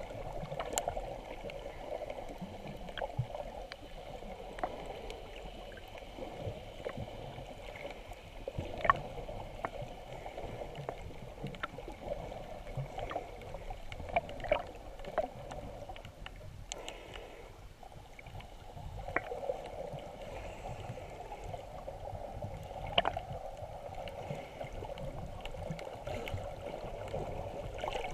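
Underwater sound picked up by a camera below the surface: a steady muffled water rush with many scattered small clicks and crackles, dipping briefly about two-thirds of the way through.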